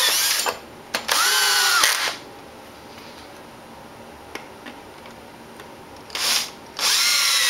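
Cordless drill driving wood screws through a 2x4 board in short runs. With each pull of the trigger the motor whines up in pitch, holds, then winds down: one run ends about half a second in, another lasts about a second, and there is a short blip before a last run starts near the end.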